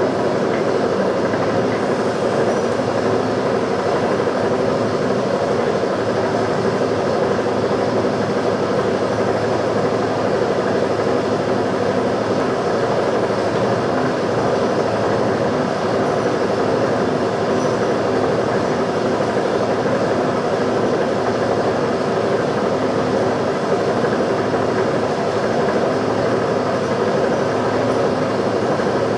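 Milling machine running steadily: a constant hum and whir with no cuts, knocks or changes in pitch.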